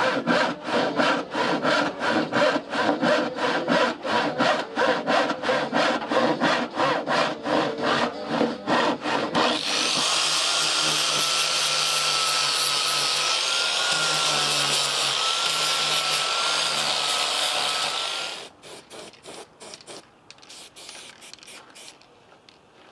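Handsaw cutting through plywood in quick, even strokes, about three a second. About nine seconds in it gives way to a small angle grinder with a sanding disc running steadily on the plywood with a high whine, which cuts off about eighteen seconds in, followed by faint scraping.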